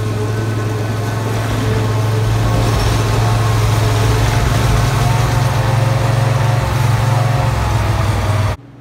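Engine of a home-built mini snow cat running steadily at idle, a loud, even low hum with a few steady tones above it. It cuts off suddenly near the end.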